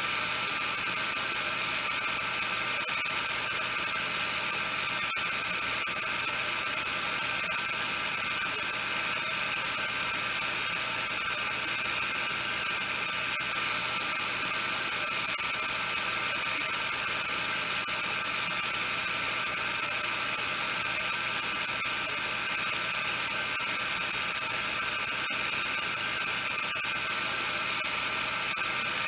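A steady whirring hiss with a high hum over it, even and unchanging.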